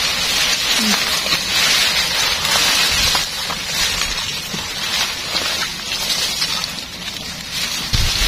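Dry grass, vines and leaves rustling and crackling as a person pushes through dense vegetation, with a dull low thump near the end.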